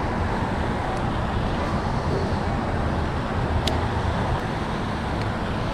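Steady rush of falling water from a nearby waterfall, an even unbroken noise, with one faint click about three and a half seconds in.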